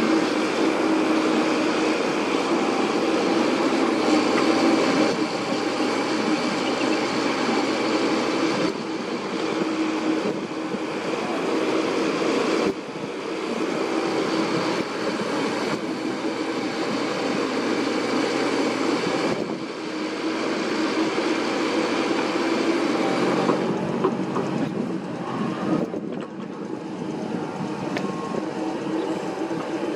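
Komatsu PC78US mini excavator's diesel engine running steadily under load, with a steady hum, while the machine digs and swings earth. The sound changes abruptly a few times.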